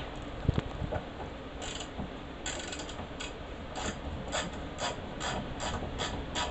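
Socket ratchet wrench clicking in short, evenly spaced strokes, about two a second, as the fasteners on a bus rear-window gas strut mount are turned.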